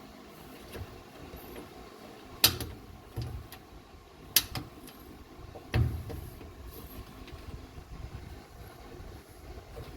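Three sharp knocks and clanks as the clothes dryer's parts are handled during reassembly, heard over a low steady background hum. The first knock is the loudest.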